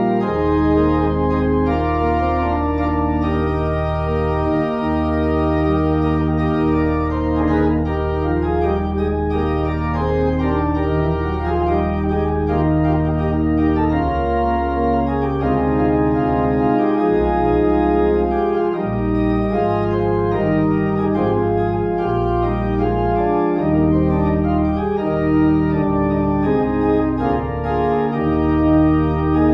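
Church organ playing the postlude: sustained chords over deep held bass notes that change every second or two.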